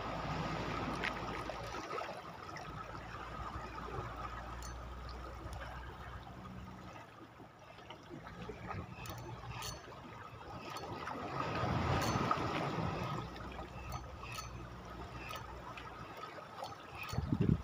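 Seawater lapping and washing against rocks at the water's edge, swelling up at the start and again about twelve seconds in, with faint small clicks.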